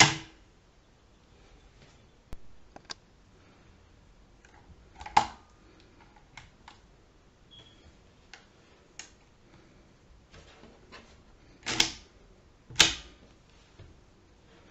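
Schubert DRV mechanical calculator being worked by hand: sharp metallic clacks of its levers, carriage and crank mechanism, one at the start, one about five seconds in and two loud ones about a second apart near the end, with faint ticks in between.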